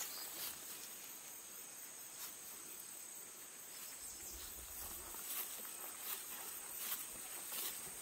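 Steady, high-pitched chorus of insects in forest undergrowth, with faint footsteps and rustling of grass and leaves from someone walking through dense brush, a few steps more audible in the second half.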